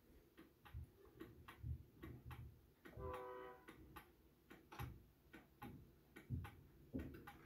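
Faint tick-tock of a 1901 Ingraham kitchen gingerbread clock's pendulum movement running, which the owner says is out of beat. A brief ringing note sounds about three seconds in.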